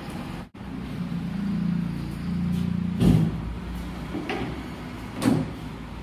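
Workshop handling sounds at a tractor engine: two sharp knocks, about three and five seconds in, over a low steady hum.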